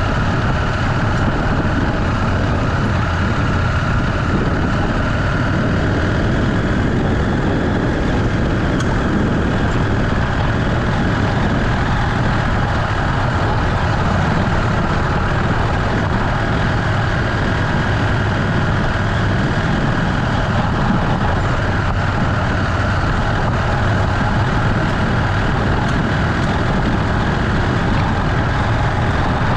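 Motorcycle running steadily on the move, its engine noise mixed with a steady rush of wind and road noise on an action camera.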